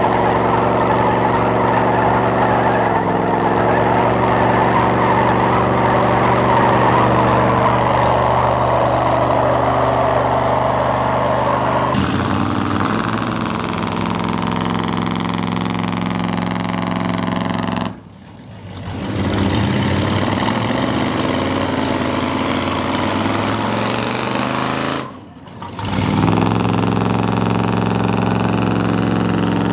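Pickup truck engines held at high, steady revs, straining against the pull of a truck tug-of-war. The sound drops out briefly twice.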